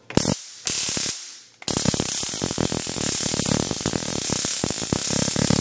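Handheld stun gun arcing across its electrodes against an iPhone X's stainless-steel frame: two short zaps, then a steady electric crackle of rapid sparks from about a second and a half in.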